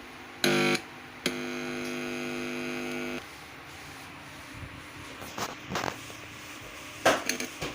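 Electronic buzzing from an Asus laptop's audio output, typical of a faulty audio jack: a short loud buzz, then a steady buzzy tone lasting about two seconds, followed by scattered crackles and clicks near the end.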